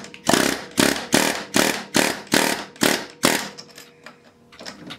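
Pneumatic air hammer with a rounded bit firing in short bursts, a little over two a second, driving a pin through a drive shaft yoke into place. The bursts stop about three and a half seconds in.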